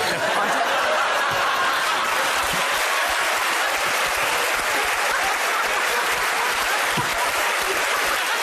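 Studio audience breaking into steady applause, starting all at once.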